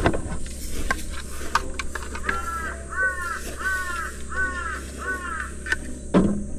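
A crow cawing in a run of about five harsh calls, roughly one and a half a second, starting about two seconds in. Scattered light knocks and rustles sound around it.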